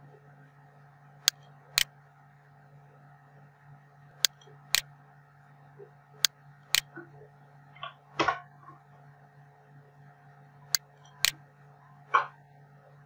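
Computer mouse clicking: four pairs of sharp clicks, the two clicks in each pair about half a second apart, over a faint steady electrical hum. Two short, duller rustling noises come near the middle and near the end.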